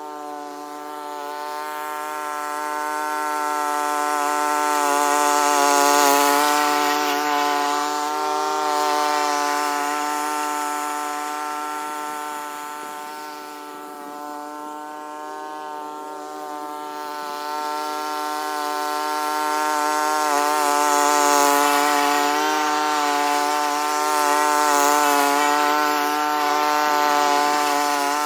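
Engine of a Honda self-propelled mower running steadily at a constant speed while cutting grass, growing louder and fading twice as the mower moves nearer and farther away.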